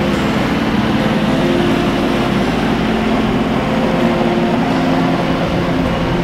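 Steady rushing of wind and water on a catamaran under way through choppy water, with the low hum of its motor underneath.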